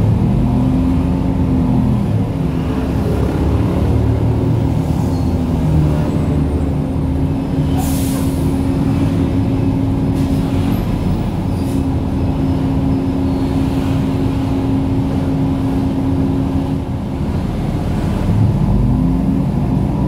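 Transjakarta city bus heard from inside the cabin: its drive note falls at the start, holds a steady hum through the middle, then rises again near the end as the bus picks up speed. A short hiss of air, typical of an air brake or door release, comes about eight seconds in.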